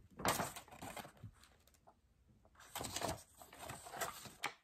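Packaging being handled: a kraft-paper tea pouch and paper packing crinkling and rustling, in a short bout near the start and a longer one over the second half.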